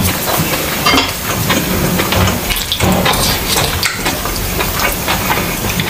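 Close-miked eating sounds: chewing, with a spoon and fork scraping and clicking on ceramic plates as food is scooped up.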